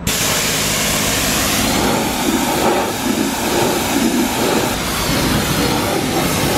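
High-pressure car-wash lance spraying water on the car: a steady, loud rushing hiss that starts abruptly.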